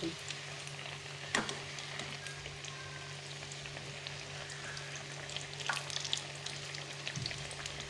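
Besan-battered eggplant slices deep-frying in hot oil in a steel pan on low flame, with a steady sizzle and a faint hum underneath. A spatula turning the slices clicks against the pan about a second and a half in and again near six seconds.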